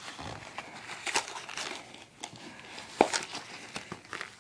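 Slinky packaging being ripped open by hand: irregular crinkling and tearing of the wrapping, with one sharp snap about three seconds in.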